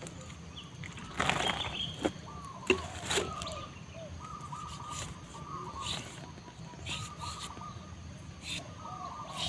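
Zebra doves (perkutut) cooing in short repeated phrases throughout. About a second in there is a burst of rustling, followed by a few sharp knocks as a bamboo pole is handled.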